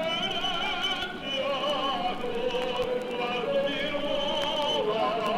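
A voice singing in operatic style, holding and sliding between long notes with a strong vibrato.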